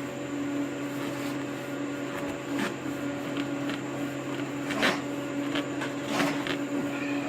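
A steady electrical hum, with a few short clicks and knocks of hand work, about a second or so apart in the second half.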